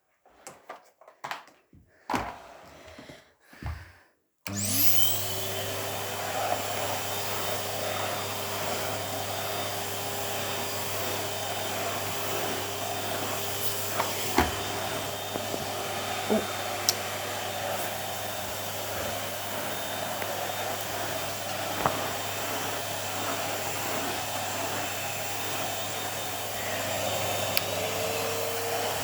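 Numatic Henry HVR200-12 cylinder vacuum cleaner switched on about four seconds in after a few handling clicks. Its motor whines up to speed and then runs steadily, with a few sharp knocks along the way and a slight rise in pitch near the end.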